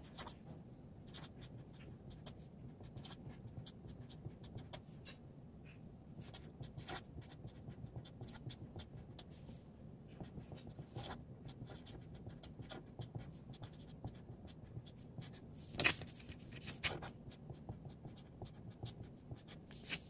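Felt-tip marker pen writing on a sheet of paper on a hard countertop: a run of short, light scratching strokes, with a couple of sharper ticks about three-quarters of the way through.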